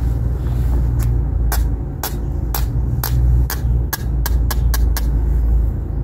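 A series of short, sharp clicks, about two a second and quickening near the end, over a steady low wind rumble on the microphone.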